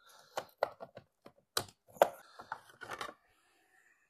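A string of irregular sharp plastic clicks and knocks as a carbon fibre mirror cover is pressed and worked onto a car's side-mirror housing, the loudest about two seconds in. It is a poor-fitting aftermarket cover that is fighting being pushed on and won't snap into place.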